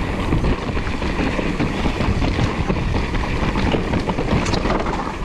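Mountain bike descending a dirt forest trail: a steady rumble of wind buffeting the microphone and tyres rolling over dirt, with many small knocks and rattles from the bike over the rough ground.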